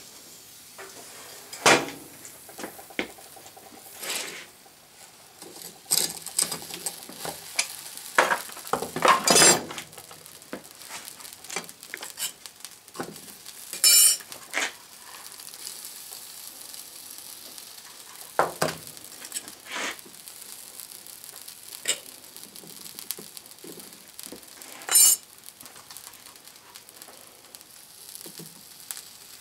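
A red-hot steel vise jaw, at about 1650 degrees, being set into a thin metal tray and covered with Kasenit case-hardening powder. Sharp metal clinks, knocks and scrapes come at irregular intervals over a faint, steady sizzle as the compound lands on the hot steel.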